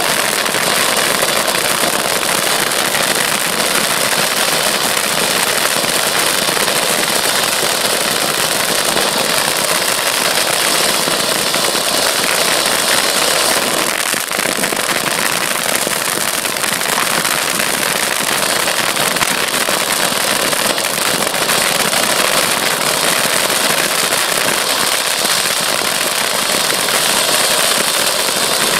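350-gram consumer fireworks fountains burning, a loud, steady hiss of spraying sparks with no pauses.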